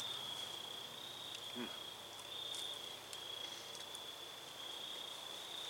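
A faint, steady, high-pitched trill of insects. About one and a half seconds in, a person makes a brief murmur.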